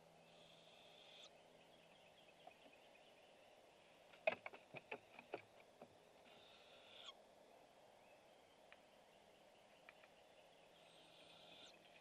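Barred owlet giving raspy, hissing begging screeches three times, each about a second long, while an adult feeds it. About four seconds in there is a quick run of sharp clicks.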